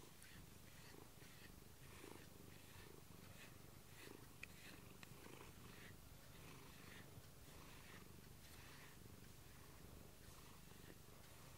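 Domestic cat purring steadily and softly, close up, while being brushed.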